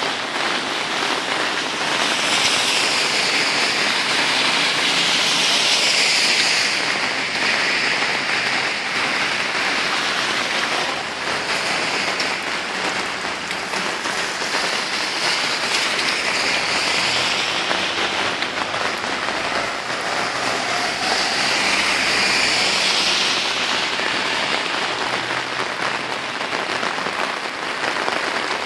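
Heavy rain from a passing typhoon pouring onto wet pavement: a dense, steady hiss that swells louder twice, for a few seconds each time.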